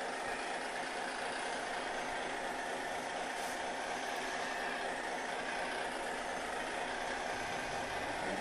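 Steady diesel-truck idle from a radio-controlled model truck's engine-sound unit, running evenly without change.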